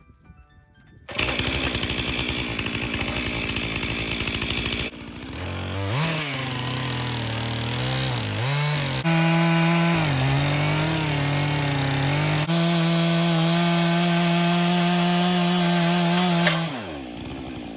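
A chainsaw on an Alaskan chainsaw mill running near full throttle while ripping a slab from a log. Its pitch rises, dips and recovers under the cutting load, then settles at a steady high whine. Near the end the throttle is released and the pitch falls away.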